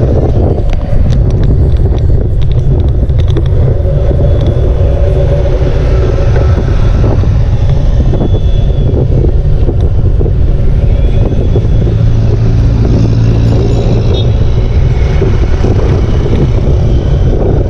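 Wind rushing over the microphone of a camera carried on a moving bicycle: a loud, steady, low rumble.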